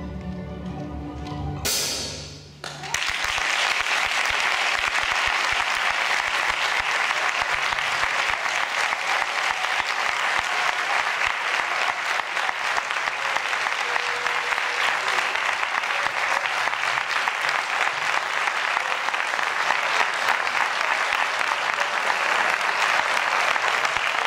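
The ensemble's final chord sounds and stops about two seconds in, then an audience breaks into steady, sustained applause that carries on to the end.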